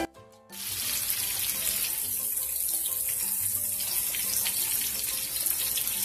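Squash chunks and tomatillos frying in hot vegetable oil in a pan: a steady, even sizzle that comes in about half a second in after a brief lull. The vegetables are being lightly fried to soften them, not cooked through.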